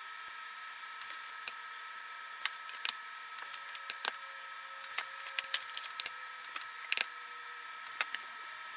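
A steady electrical hum with small, irregular crackles and clicks scattered through it.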